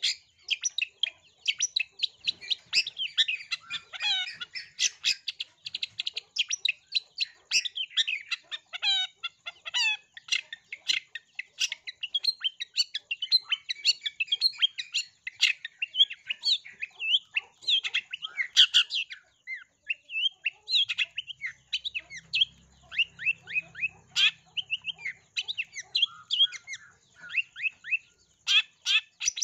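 Long-tailed shrike (cendet) singing a fast, nearly unbroken chatter of sharp rapid notes, packed with mimicked sparrow chirps. The song pauses briefly about two-thirds of the way through.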